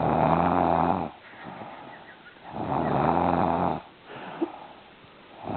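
A sleeping woman snoring in long, even snores, two of them about two and a half seconds apart, with a third starting at the very end.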